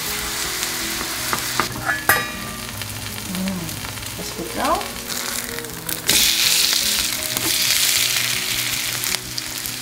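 Battered perilla-leaf pancakes sizzling as they fry in oil in a pan. The sizzle grows louder and brighter about six seconds in, then eases off.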